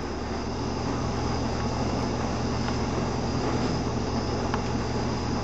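Steady machine hum with a low drone, running evenly without change.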